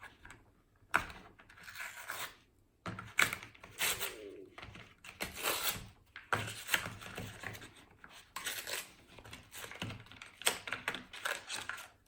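Plastic slime packaging crinkling and tearing as it is pulled open by hand, in irregular bursts with a short pause a couple of seconds in.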